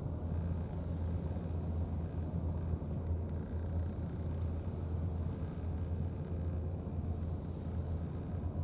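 Steady low outdoor rumble, with a faint high tone coming and going.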